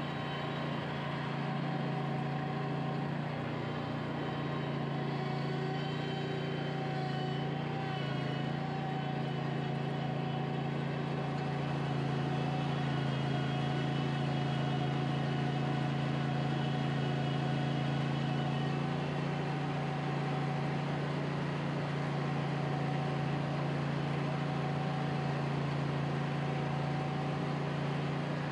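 Kohler engine of a zero-turn mower running steadily at its 3600 RPM fast setting with the mower deck off, the governor opening and closing the throttle to hold the speed as the load changes on a hill. The engine note stays level throughout, only slightly louder in the middle stretch.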